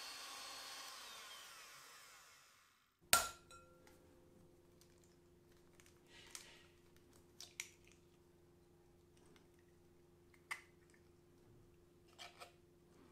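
Electric hand mixer whirring steadily as it beats butter and cream cheese in a glass bowl, fading out over the first three seconds. Then a sharp knock, followed by a few light clicks and cracks as eggs are cracked and their shells handled over glass bowls to separate yolks from whites.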